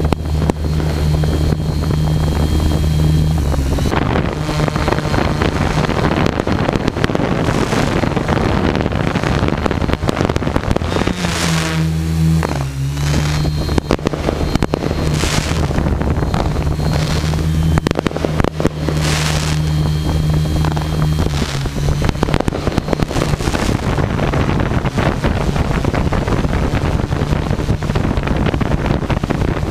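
Multirotor drone's electric motors and propellers humming steadily, with wind rush on the onboard microphone; near the middle the hum drops in pitch and climbs back as the drone manoeuvres.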